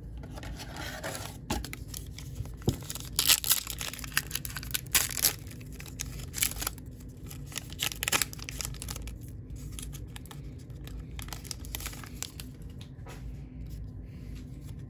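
A 2022 Topps Heritage baseball card pack's wrapper being torn open and peeled back by hand: crackling rips and crinkles coming in several bursts.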